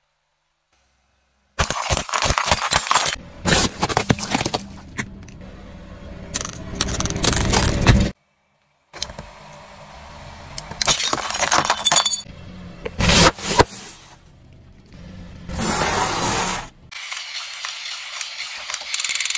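A car tyre rolling over and crushing objects one after another: plastic cracking, snapping and shattering in sudden loud bursts, with quieter stretches in between.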